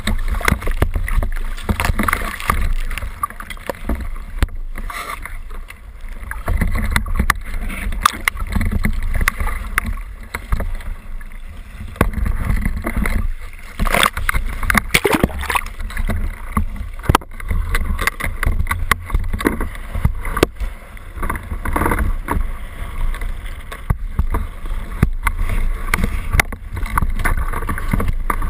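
Seawater splashing and sloshing at the surface around a speargun-mounted camera, with a steady low rumble and many sharp knocks against the camera housing as it moves through the churning water.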